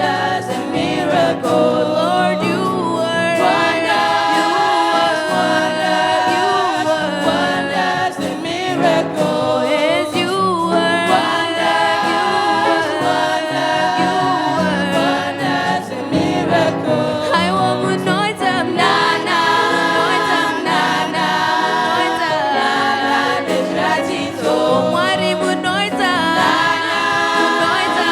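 A choir singing a Shona gospel song in several-part harmony, with a steady low part under the melody and no break.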